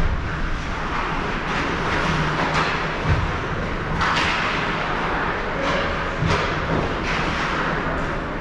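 Ice hockey rink sounds during play: a continuous hall din, with scattered short knocks and brief scraping hisses of skates and sticks on the ice.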